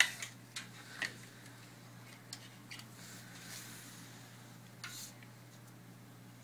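Scattered light clicks and taps as the metal side tensioner clamps of a longarm quilting frame are handled and adjusted, the sharpest at the start and about a second in, over a steady low hum.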